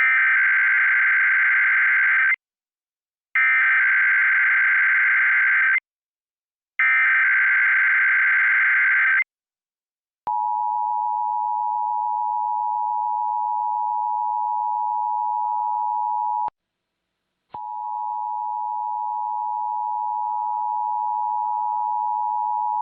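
Emergency Alert System test audio: three harsh buzzing bursts of SAME header data, each about two and a half seconds long and a second apart. Then the two-tone attention signal, 853 and 960 Hz sounding together, holds steady for about six seconds, cuts off, and starts again a second later.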